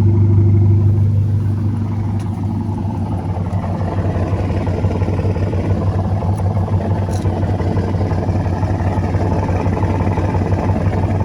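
Car engine idling through a modified, partly delete exhaust. The note is steady at first, then turns rougher and more uneven about a second in.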